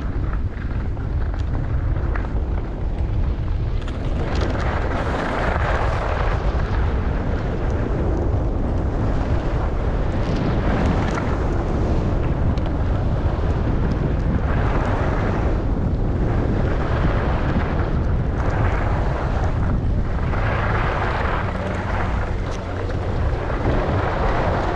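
Skis hissing and scraping over snow, swelling every few seconds as the skier turns, over a steady low rumble of wind buffeting the microphone.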